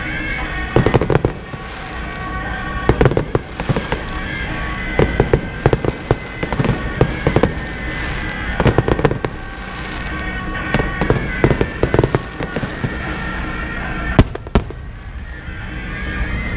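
Fireworks going off in rapid clusters of sharp bangs every second or two, with two single loud bangs a little after the 14-second mark, as a ceremonial fireworks salute. Procession music plays steadily underneath.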